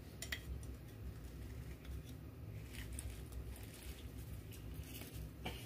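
Handheld lime squeezer pressing half a lime over a bowl: faint squishing with a few light clicks.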